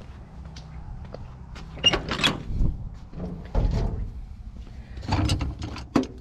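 Steel cab door of a 1963 Ford F-100 unibody pickup being worked open: a few metal clunks and knocks, about two seconds in, near four seconds, around five seconds and just before six seconds.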